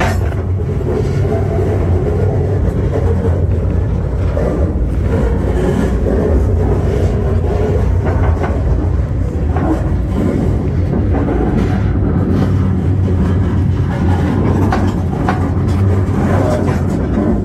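Freight car rolling along the track, heard from aboard it: a steady low rumble of steel wheels on rail with a few light clicks and clanks. The car's wheels are round, with no flat-spot pounding.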